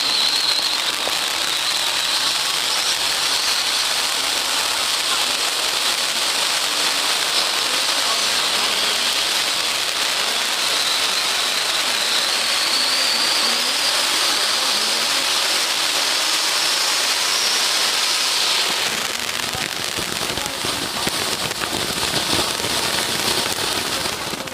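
Ground fountain firework (Doremi "Lady Liberty") spraying sparks: a steady, dense hiss with crackle, its high edge drifting up and down. It eases a little after about three-quarters of the way through and falls away at the very end.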